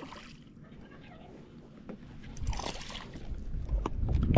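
A small striped bass on a fishing line splashing at the water's surface beside the boat, loudest about halfway through, followed by knocks and handling noise near the end as it is lifted aboard.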